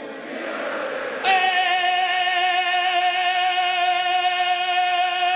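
A stadium crowd's brief sung answer, then a male rock singer holds one long, high sung note with vibrato, starting about a second in. This is part of a call-and-response vocal improvisation with the crowd.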